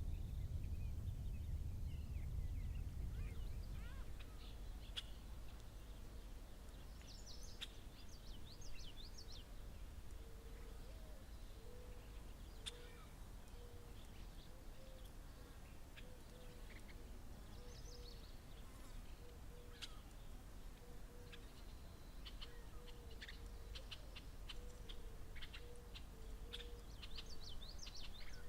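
Outdoor ambience of birds chirping: scattered short high calls, and through the middle a short low note repeated steadily about every three-quarters of a second. A low rumble of wind runs underneath, heaviest at the start.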